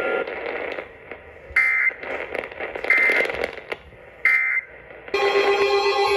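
Three short EAS end-of-message data bursts (the digital SAME 'NNNN' tones) from a NOAA Weather Radio broadcast, each about a third of a second, a little over a second apart, with crackly radio static between them; they mark the end of the warning message. About five seconds in, a steady, continuous alert tone starts.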